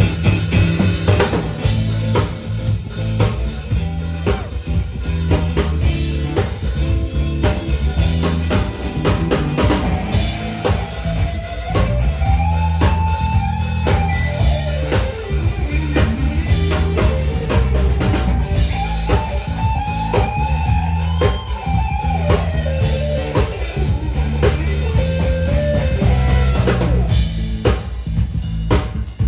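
Live band playing at a sound check: a drum kit with bass drum and snare keeps a steady beat over a bass line, and from about ten seconds in a guitar plays a melodic lead with bent notes.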